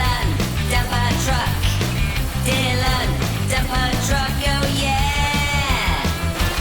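Upbeat rock-style song with a steady drum beat and melodic lines over it.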